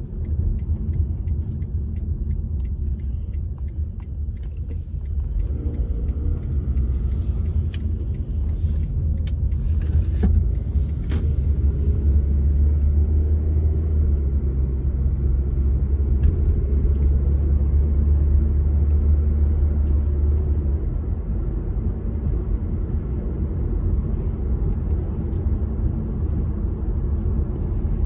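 Car cabin noise while driving: a steady low rumble of road and engine, growing louder for several seconds in the middle, with a few brief higher hissy sounds about a quarter of the way in.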